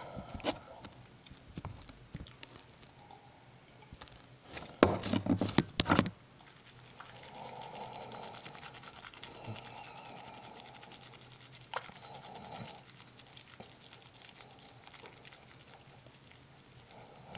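Beatbox mouth sounds: scattered sharp clicks and pops, with a dense, loud run of them about five seconds in, then a softer steady breathy sound.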